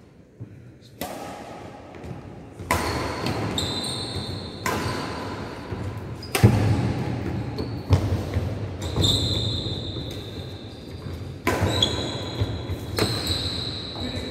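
Badminton rackets striking a shuttlecock back and forth in a rally, a sharp crack about every one to two seconds, each echoing around a large hall.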